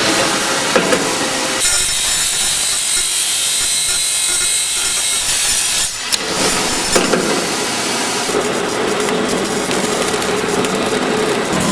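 A SPIRO ALPHA 6 spiral duct machine running, forming steel strip into spiral duct pipe with a loud, hissing metal-grinding noise. At about six seconds the sound dips briefly and changes to a lower, steadier hum.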